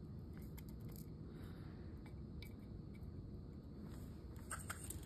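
Faint steady room hum with a few light clicks, the sharpest of them near the end.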